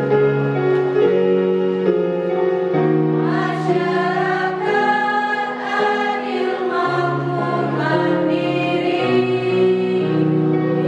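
A women's choir singing over held keyboard chords; the voices swell in strongly about three seconds in.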